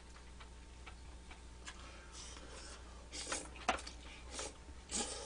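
Quiet eating: faint small mouth ticks, then a few short slurps of glass noodles from about three seconds in, with one sharp click among them.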